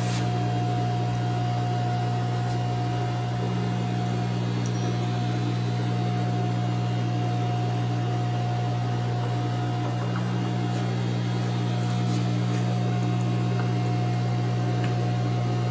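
Milling machine running at a steady speed: a constant motor hum with a thin, higher whine over it.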